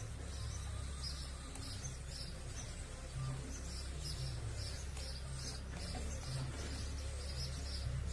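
A bird chirping repeatedly, about two short high chirps a second, over a steady low hum.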